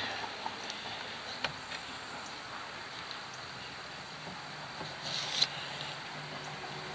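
Faint handling noise of a hand pushing a fuel injector into its bore on the engine. There is a single sharp click about a second and a half in, a few small ticks, and a short scraping rustle around five seconds in.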